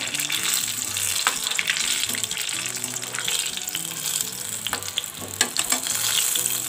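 Spring rolls deep-frying in hot oil in a kadhai: a steady sizzle with scattered crackles, as a perforated metal ladle turns them in the oil.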